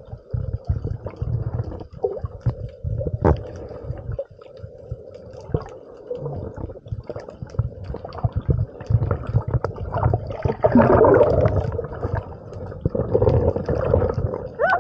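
Water sloshing and gurgling close to the microphone, with a low rumble and scattered knocks; it gets louder around two-thirds of the way through.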